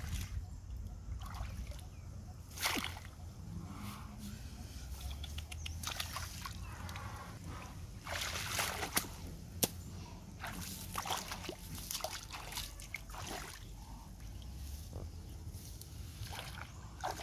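Feet and hands splashing and sloshing in shallow muddy water, with grass rustling, as someone wades and grabs at frogs along a ditch bank. There are scattered sharper splashes, the loudest about three seconds in and again around eight to ten seconds.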